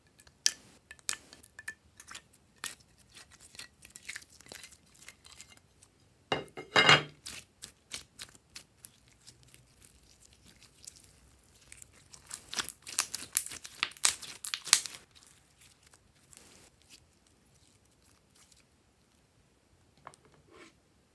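Glossy slime being handled and stretched by hand, giving sticky crackling clicks, with a loud dense burst about six seconds in and another long cluster from about twelve to fifteen seconds in, then only a few scattered clicks.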